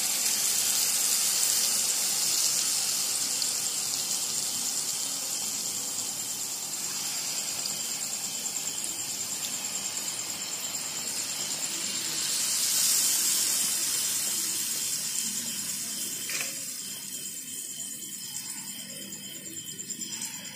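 Palm-fruit batter fritters (taler bora) sizzling as they deep-fry in hot oil in a kadai, a steady hiss that swells briefly about two-thirds of the way through and grows fainter near the end.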